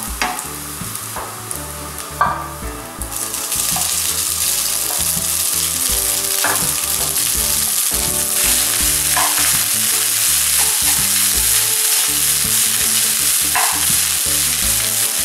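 Scrambled egg, then cooked rice, sizzling in a hot nonstick wok on a gas flame, with a wooden spatula scraping and stirring every few seconds. The sizzle grows louder about three seconds in.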